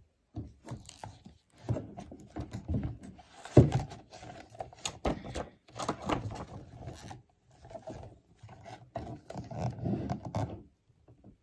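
Hands handling a hardcover book: the cover opening, paper pages turning and being rubbed flat, giving irregular rustles and scrapes with a few knocks, the loudest about three and a half seconds in. It stops shortly before the end.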